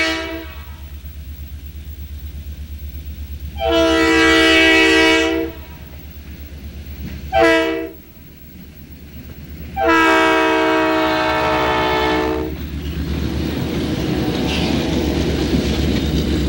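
Diesel road-switcher locomotive's air horn sounding the grade-crossing signal: a blast ending just after the start, then long, short, long. Under the horn the diesel engine throbs steadily, and in the last few seconds the rumble of the locomotive and freight cars rolling past takes over.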